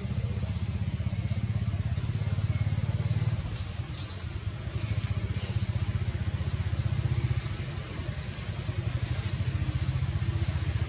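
An engine running steadily nearby with a low, evenly pulsing sound that dips slightly about four seconds in, with a few faint high clicks above it.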